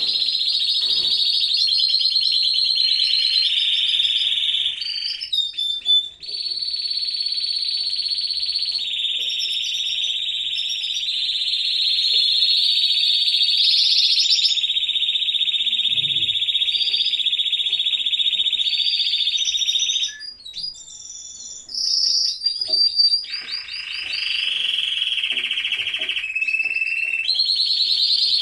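An aviary full of canaries in breeding season singing together: long, fast, high-pitched rolling trills, one after another with hardly a break. The song thins out briefly about five seconds in and again around twenty seconds.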